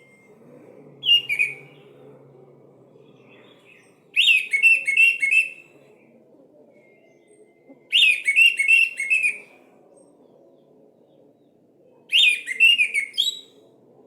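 Orange-headed thrush (anis merah) singing: four short, varied whistled phrases, each about a second and a half long, coming about every four seconds.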